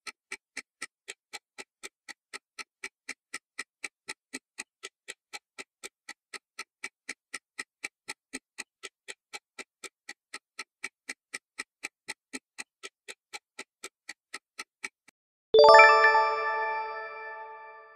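Quiz countdown-timer sound effect: clock-like ticking, about three to four ticks a second, for about fifteen seconds as the timer runs out. Then a loud bell-like chime rings and fades, marking the reveal of the correct answer.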